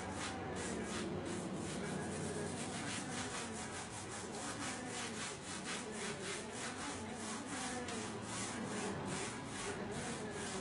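Paintbrush brushing oil paint onto canvas in quick, even back-and-forth strokes, about five a second.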